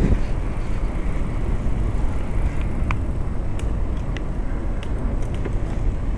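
Steady low wind noise on the microphone of a camera carried on a moving bicycle, with a few faint short high chirps between about three and five seconds in.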